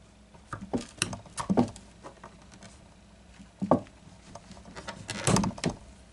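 Small rubber suction cup being pressed onto and pulled off an acoustic guitar's top to pump glue into a crack. It makes clusters of short smacks and pops, about a second in, near four seconds and around five seconds in.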